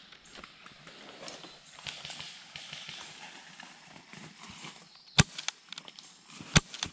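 Two sharp shots from an airsoft pistol about a second and a half apart, near the end, over a soft rustle of leaves and undergrowth.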